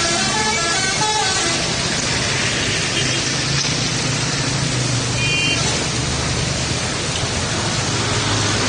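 Truck 'telolet' horn, a multi-tone musical air horn, playing a quick stepped tune that stops about a second and a half in. Then heavy traffic noise with a steady engine drone, and a brief high beep about five seconds in.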